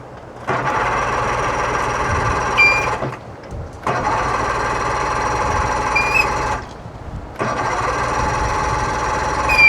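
1999 Johnson 70 hp two-stroke outboard being cranked by its electric starter three times, each for about two and a half seconds with short pauses between, and a brief high squeal near the end of each crank. The engine turns over but does not fire: a no-start.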